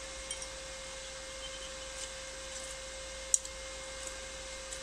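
Inverter welding machine switched on and idling, giving a steady high-pitched hum. A single sharp click a little over three seconds in.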